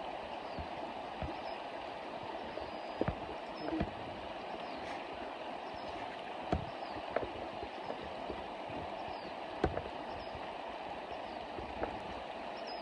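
Creek water running steadily, with scattered sharp knocks and clicks over it.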